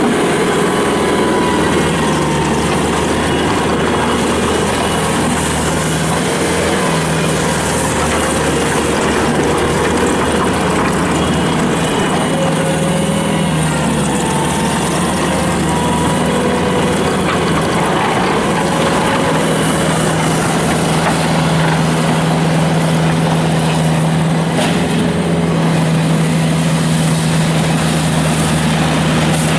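Bobcat T300 tracked skid steer's Kubota turbo diesel engine running steadily at a constant speed.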